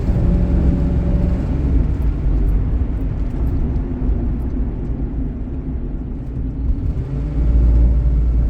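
V8 car engine running with a deep steady rumble that grows louder about seven and a half seconds in.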